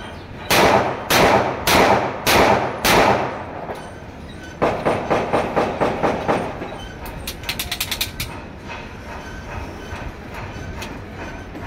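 Beretta 92-style 30 bore (7.62×25 mm Tokarev) pistol fired five times in quick succession, a little under two shots a second, each shot trailing an echo. About a second and a half later comes a faster run of lighter knocks, then a short string of small metallic clicks as the pistol and magazine are handled.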